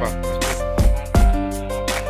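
Background music with heavy bass beats and long held tones.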